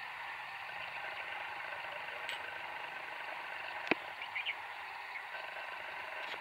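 Steady outdoor background noise, with one sharp click a little past the middle.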